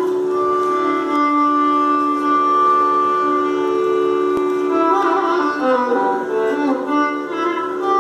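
Two Carnatic violins playing in unison in raga Andholika: long held bowed notes at first, then sliding, ornamented phrases from about five seconds in.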